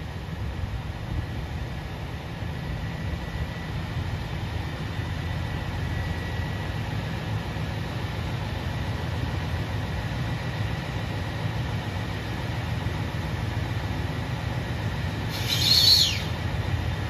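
KiHa 283 series diesel multiple unit standing at the platform with its diesel engines idling: a steady low rumble. About a second before the end comes a short, high whistle that falls in pitch.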